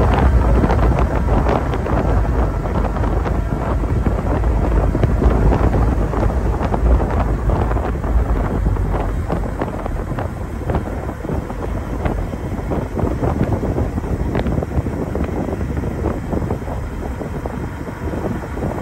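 Wind buffeting the microphone of a camera moving at speed: a steady low rumble with scattered crackles, easing somewhat in the second half.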